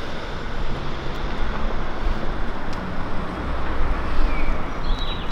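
Steady road traffic noise from passing cars, a low rumbling hiss that grows a little louder near the end.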